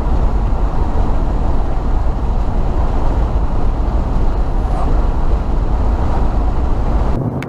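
Steady low road rumble of a car being driven, cutting off suddenly just before the end.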